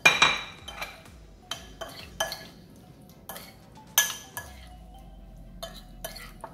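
Metal spoon clinking and scraping against a ceramic bowl while tossing octopus pieces in a thick turmeric marinade. The knocks are irregular, the loudest right at the start and again about four seconds in.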